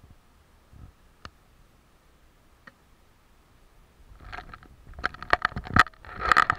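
Handling noise close to the microphone: a few faint isolated clicks, then from about four seconds in a rapid run of knocks and rattles, loudest near the end.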